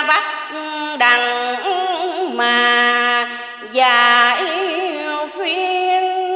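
A woman's voice chanting Vietnamese Buddhist verse in the slow ngâm style, unaccompanied, in long held notes that waver up and down, with short breaks between phrases.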